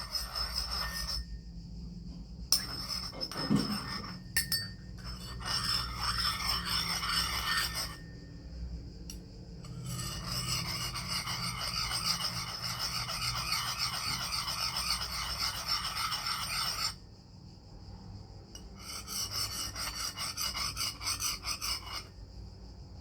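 A bowl of sugar water being stirred: a rasping scrape against the bowl. It comes in spells several seconds long, with short pauses about a second in, eight seconds in and seventeen seconds in.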